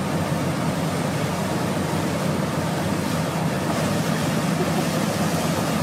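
A steady low roar: a large jet of water gushing from a discharge pipe on a rig truck, with the truck's heavy machinery running.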